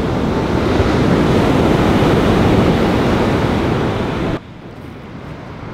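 Ocean surf washing onto a sandy beach, with wind on the microphone. The sound drops abruptly to a quieter wash a little over four seconds in.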